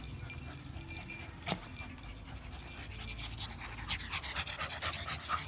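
A dog panting in quick, short breaths that become more distinct in the second half, with a single sharp click about a second and a half in.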